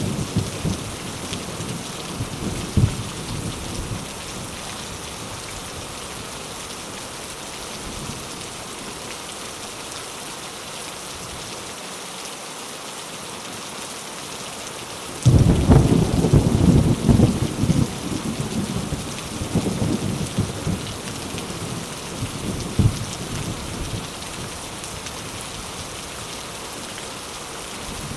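Steady rain falling through a thunderstorm. A low thunder rumble fades out over the first few seconds, then about halfway through a sudden loud clap of thunder breaks and rolls on in surges for several seconds before dying away.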